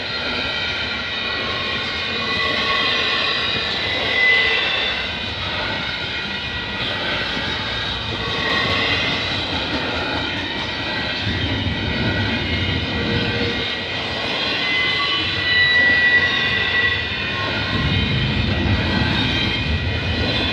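Double-stack intermodal freight train's container cars rolling past: steady rumble and clatter of wheels on the rails, with several high ringing tones held over it.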